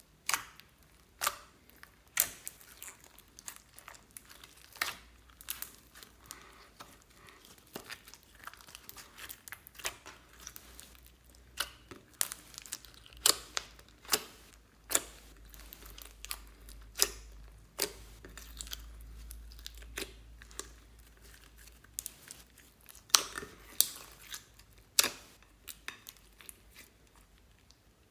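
Slime being worked by hand, with irregular sharp pops and crackles, several a second at times.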